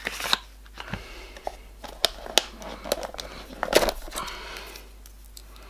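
Paper leaflets and card packaging being handled: rustling near the start, then a few sharp clicks and knocks of cardboard, the loudest a little past the middle.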